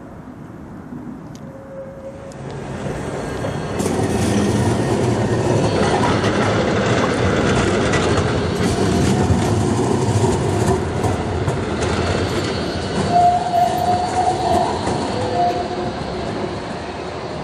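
A tram passing close by, its wheels rolling over the rails with a rumbling clatter that builds up a few seconds in. Near the end come a few short, high wheel squeals from the curved track.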